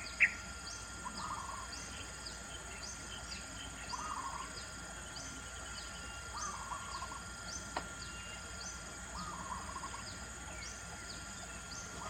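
Outdoor ambience: a bird calls a short phrase over and over, about every two seconds, over a steady drone of insects and a faster high repeated chirping. Two sharp clicks at the start and a fainter one about eight seconds in.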